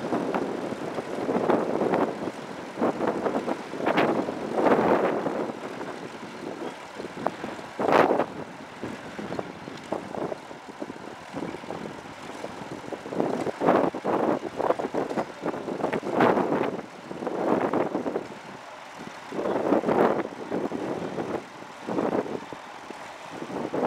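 Ferguson tractor engines running under load, the sound swelling and fading every second or two.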